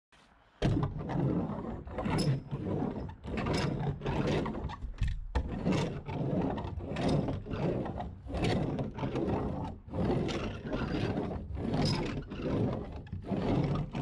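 Peel-and-stick membrane (Henry Blueskin VP100) being rubbed down onto plywood sheathing in repeated strokes, about two a second, pressing it to stick.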